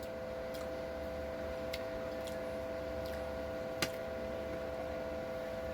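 A steady humming tone, two pitches held together, with five faint sharp clicks scattered through it, the sharpest about four seconds in.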